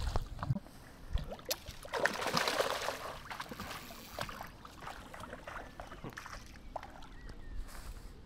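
Water splashing and sloshing, loudest about two seconds in, with scattered small clicks and knocks.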